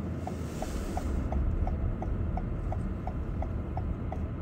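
A car's turn-signal or hazard-light flasher ticking steadily, about three short clicks a second, over a low rumble inside the stopped car.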